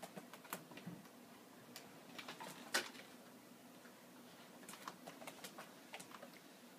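A cat's claws scrabbling and scratching against a wooden shelf unit as it hangs from the top edge and struggles to pull itself up: faint, irregular clicks and scrapes, the loudest a little before three seconds in.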